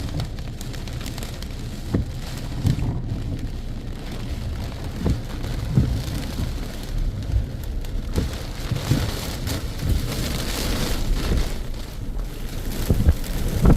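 Heavy rain falling in strong wind, a steady hiss over a low rumble with scattered short thumps. The hiss swells for a few seconds past the middle.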